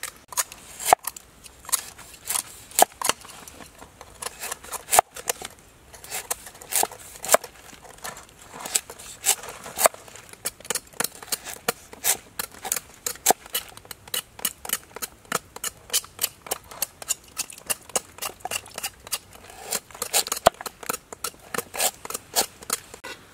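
A kitchen knife chopping on a wooden cutting board, slicing lemongrass and a knobby root. The blade strikes the board in quick, sharp knocks, about three a second, unevenly spaced.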